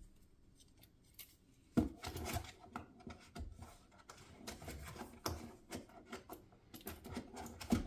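Hand tools being handled: a sharp click about two seconds in, then irregular light clicks and rubbing.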